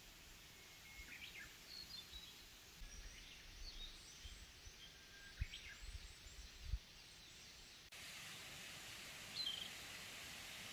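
Faint outdoor ambience: small birds chirping now and then over a low hiss, with two soft low thumps about five and a half and seven seconds in.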